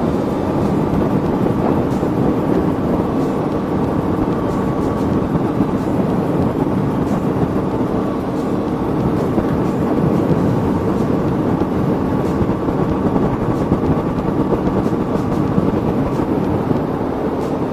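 Aprilia Tuono V4 motorcycle's V4 engine running at a steady pace, with a constant rushing noise underneath and no changes in revs.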